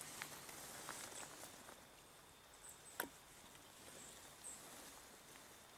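Near silence, with a few faint clicks as syrup-coated Glock pistol parts are handled and one sharper click about three seconds in.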